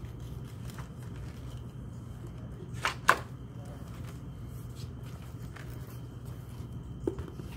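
Pages of a spiral-bound planner being turned by hand, with one sharp double paper swish about three seconds in and a small click near the end, over a steady low hum.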